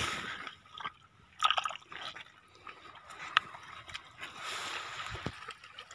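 Shallow seawater and wet sand being stirred by a hand: small irregular splashes, drips and squelches, with a few short sharp clicks.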